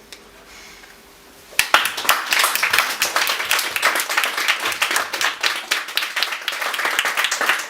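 A small audience applauding, breaking out suddenly about a second and a half in after a quiet moment at the end of a song.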